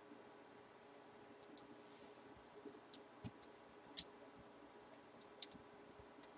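A few faint, scattered clicks and taps over near-silent room tone, the sharpest about four seconds in.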